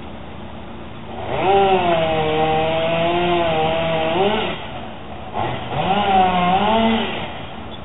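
Chainsaw cutting through the limbs of a felled birch: two spells of high revving under load, about a second in and again after five seconds, the pitch wavering and dipping as the chain bites, dropping back to a lower running sound between.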